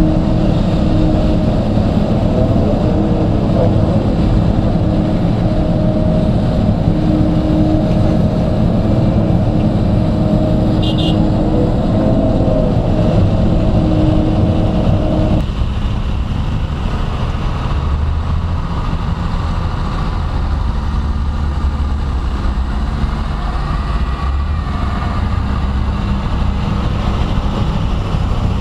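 Excavator engine and hydraulics working under load, heard from inside the operator's cab, the engine pitch shifting as the machine swings and dumps soil. About halfway through, the sound cuts abruptly to a deeper, steadier machinery rumble.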